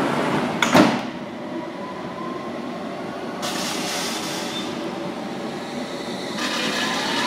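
London Underground S Stock train at the platform: its sliding doors close with a loud knock about a second in and the train hums steadily. A brief hiss follows a few seconds later, then the train starts to pull away with a rising traction-motor whine near the end.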